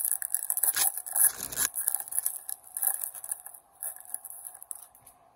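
Hockey trading cards being flipped through, card stock scraping and rubbing against card stock in quick, irregular strokes that die away near the end.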